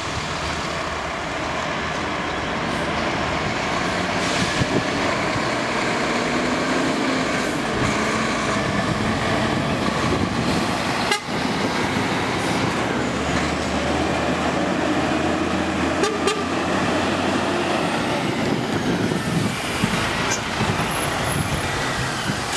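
A Scania R400 and then a DAF XF 105.410 articulated truck drive slowly past close by and pull away, their diesel engines running under light load, with a horn toot.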